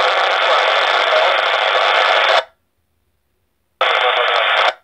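Radio scanner's speaker giving two bursts of FM radio static on a railway channel: the first about two and a half seconds long, the second about a second long near the end. Each cuts off abruptly as the squelch closes.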